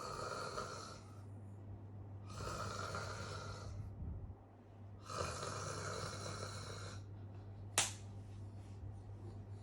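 A sleeping person snoring loudly: three long, rasping snores about two and a half seconds apart. A short sharp sound follows about eight seconds in.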